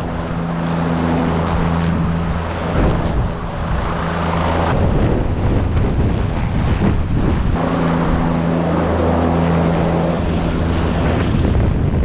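Helicopter in flight heard from inside the cockpit: a steady drone of rotor and turbine with low humming tones, under a rush of wind noise.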